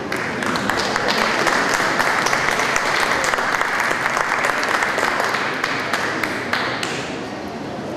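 Audience applauding: many hands clapping together, starting about half a second in and dying away after about six and a half seconds.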